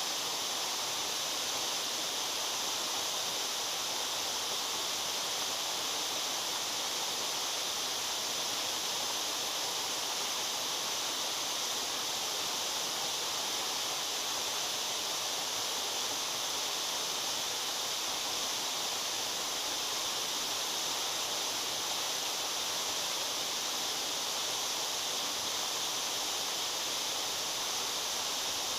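A waterfall's steady rush of falling water: an even, bright hiss that does not change.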